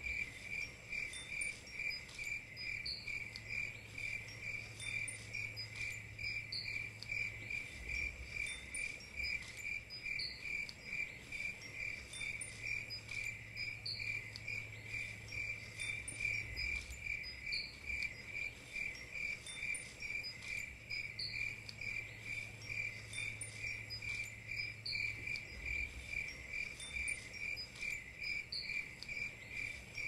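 Crickets chirping steadily at about two chirps a second, with a second, higher chirp every couple of seconds. Underneath, a low hum comes and goes.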